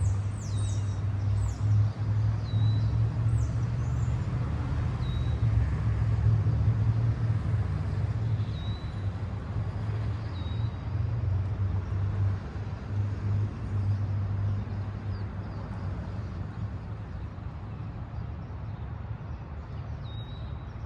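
Steady low engine rumble that eases off a little in the second half, with a bird's short, sharp down-slurred chirps repeated many times in the first few seconds and now and then after that.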